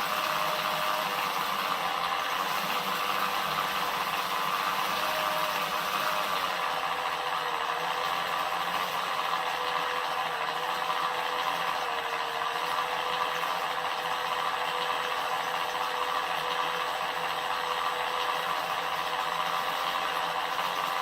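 RC scale model of a 1979 Kenworth K100 Aerodyne semi-truck running steadily through its smoke test, a continuous small-machine whirring and rattling with little deep bass.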